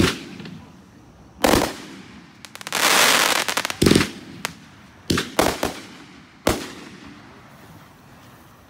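Aerial firework shells bursting overhead. A sharp bang comes at the start and another about a second and a half in, then a dense run of crackling around three seconds and a further bang near four seconds, followed by several smaller pops that die away after about six and a half seconds.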